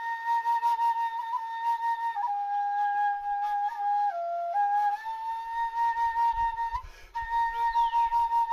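Flute playing a slow melody of long held notes, stepping down in pitch around the middle and back up, with a brief pause about seven seconds in.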